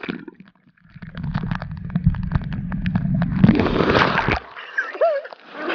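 Underwater sound from a camera dunked in a waterfall pool: after a brief hush, a muffled low rumble of the falling water with crackling bubbles. About three and a half seconds in, a splash of noise as the camera breaks the surface, then a brief voice call.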